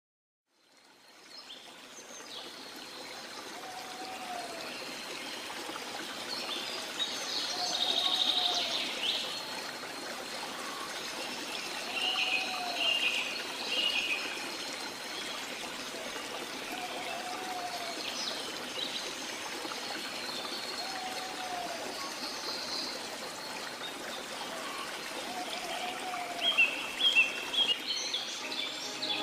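Steady rush of a waterfall and stream, fading in over the first couple of seconds, with birds calling over it now and then and a short lower call repeating every few seconds.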